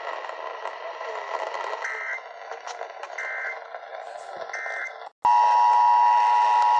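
Three short warbling bursts of EAS end-of-message data tones, about 1.3 seconds apart, over a hissy radio signal. After a brief dropout about five seconds in, the loud, steady two-tone EAS attention signal starts.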